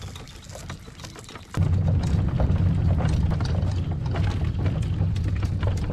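Kayak cart wheels rolling over pavement under a loaded Hobie fishing kayak: a low, steady rumble that starts suddenly about a second and a half in as the kayak is pulled along.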